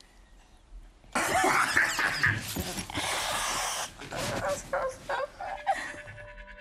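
A woman's harsh, coughing and groaning cries of distress, beginning about a second in, during an attack that the people around her take for torment by a demon. Faint held music tones come in near the end.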